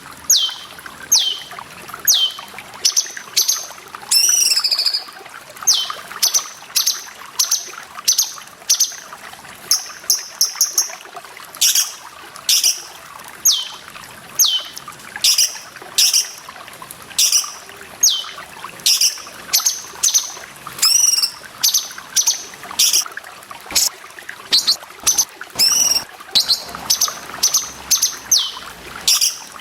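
Cucak cungkok songbird calling over and over, short calls sweeping down in pitch, about one or two a second, with a few longer warbled phrases between them. Steady trickling water runs under the calls throughout.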